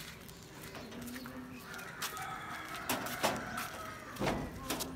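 Rooster crowing, one drawn-out call about two seconds in, with chickens in the background. A few sharp knocks come in the second half.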